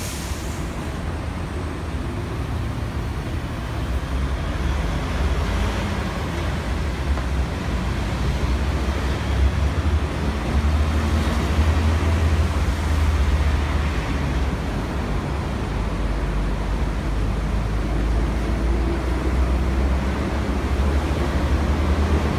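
Road traffic moving through a busy junction: cars, vans, a motorcycle and double-decker buses passing, a steady mix of engine and tyre noise with a deep engine rumble that grows louder after a few seconds.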